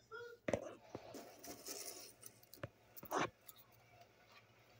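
A few sharp clicks and light clinks of hard objects handled on a kitchen counter, the loudest a little after three seconds in, with a brief faint high whine right at the start.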